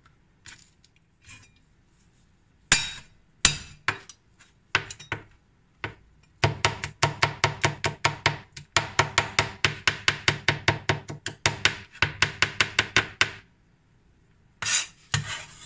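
Chinese cleaver mincing garlic on a cutting board: a few faint clicks, then two loud whacks about three seconds in, a few scattered knocks, then rapid steady chopping at about five strokes a second for some seven seconds, and a short scrape near the end.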